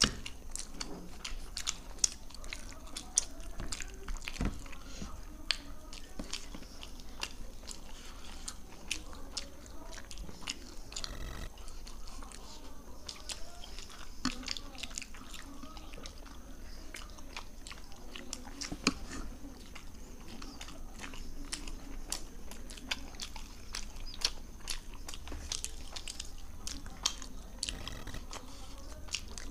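Two people chewing mouthfuls of roti with palak paneer, with many short wet mouth clicks and smacks.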